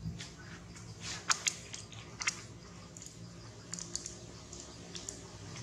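Wet clicking and smacking mouth sounds from macaques, close to the microphone: a few sharp clicks about a second in and again near two seconds, then fainter ones, over a low steady hum.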